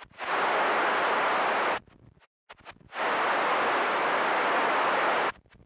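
CB radio receiver on channel 28 hissing twice as a signal opens the squelch with no voice on it: two bursts of steady hiss, about one and a half and two seconds long, each cut off abruptly into silence.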